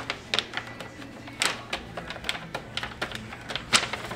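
Plastic squeegee tapping and scraping on vinyl over a plastic number plate: an irregular run of sharp clicks and taps over a faint steady hum.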